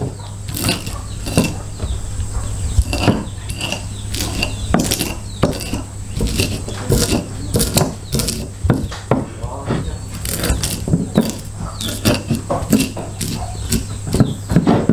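Chilies being pounded by hand with a mortar and pestle: a run of irregular sharp knocks of the pestle, one to three a second, over a steady low hum.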